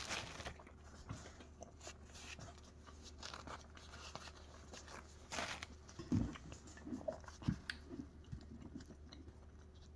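Someone eating green beans with flatbread: quiet chewing with scattered small crunches and clicks, a couple of them louder about five to six seconds in.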